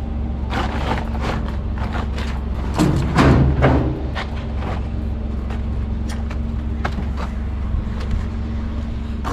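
Plastic tarps rustling and crinkling as they are handled, with a louder stretch about three seconds in, over a steady low vehicle hum.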